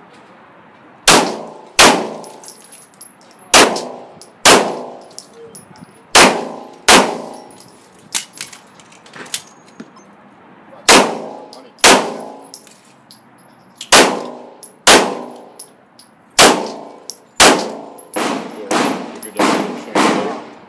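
9 mm Glock pistol fired in pairs of shots about three-quarters of a second apart, with pauses between pairs, and the steel target plates ringing after hits. Near the end comes a quicker string of about five shots.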